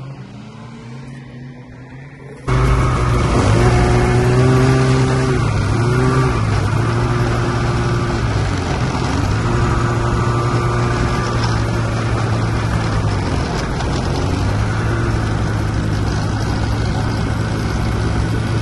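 Snowmobile engine running under way, its pitch rising and falling with the throttle. It comes in suddenly and loud about two and a half seconds in, after a quieter stretch.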